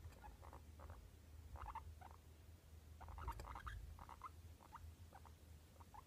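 Hairless guinea pig making soft, short squeaks, about a dozen in an irregular string with a quick flurry around halfway.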